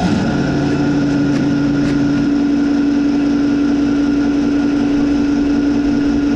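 An engine running steadily at constant speed, with a strong, even droning hum.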